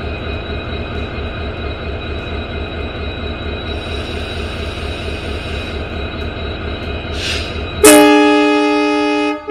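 EMD WDP 4 (GT46PAC) diesel-electric locomotive's two-stroke V16 engine running with a steady, pulsing low throb. About eight seconds in its horn sounds one loud blast of several tones at once, held for about a second and a half and cut off sharply.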